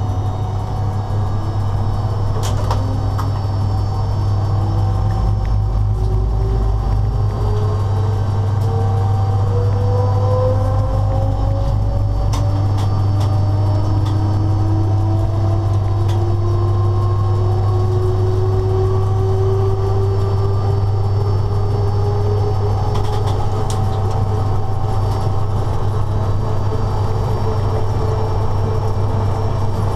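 A locomotive running, heard from inside its cab: a steady low hum under several whining tones that rise slowly in pitch, with a few faint clicks.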